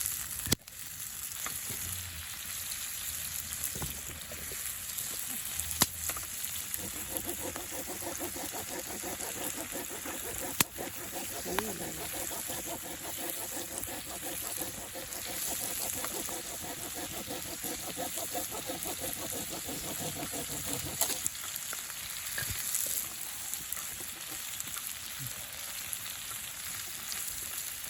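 Food sizzling and frying in a pan over a campfire: a steady hiss broken by a few sharp pops. For a stretch in the middle a faint steady whistle-like tone sits under it.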